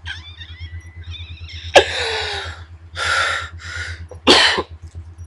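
A person's wordless noises of disgust: a high-pitched whimper, then four loud, breathy gasps and groans in quick succession. A steady low electrical hum runs underneath.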